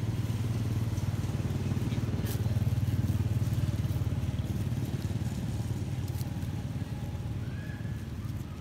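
Low, steady rumble of a motor vehicle's engine, swelling a little a few seconds in and easing off toward the end, with a few faint clicks over it.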